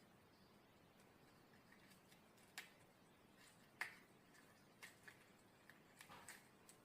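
Fresh leafy-vegetable stalks snapping crisply as their stringy, spiny skin and veins are broken and ripped off. Starting about two and a half seconds in, there are several sharp cracks at irregular intervals over a faint background.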